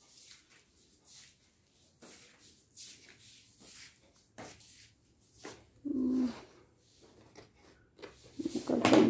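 Faint rustling and light knocks of clothes and a handheld phone being handled while a room is tidied, with a brief low hum about six seconds in.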